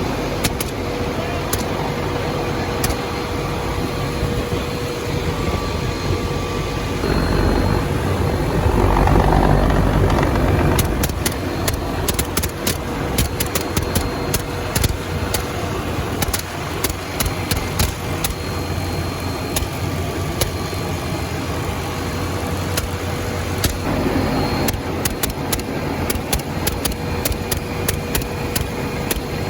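Helicopter running in flight, a steady drone with a constant whine, swelling into a louder rush about seven seconds in; many sharp clicks and cracks follow through the rest.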